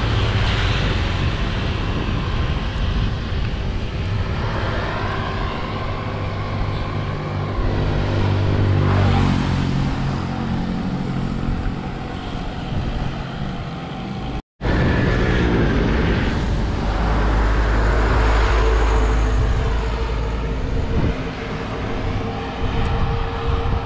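Wind rushing over the microphone of a camera on a moving bicycle, with the engines of passing motor scooters and traffic running underneath. The sound cuts out for an instant about halfway through.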